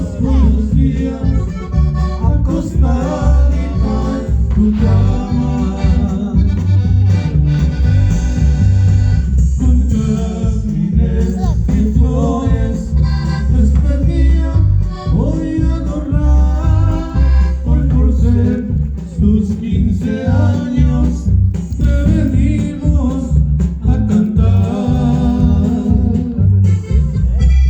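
Loud music playing, with heavy bass and a singing voice over it.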